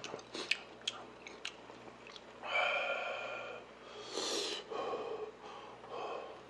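Close-miked eating sounds: a few sharp clicks of chopsticks against the metal hotpot in the first second and a half, a short breathy rush of air about four seconds in as steaming noodles are lifted out, then soft chewing.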